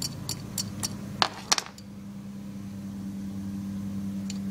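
Small metallic clicks and ticks as a float pin is pushed with a pointed tool through the float hinge of a Kohler K-series carburetor: a run of light ticks, then two sharper clicks about a second and a half in. A steady low hum underneath.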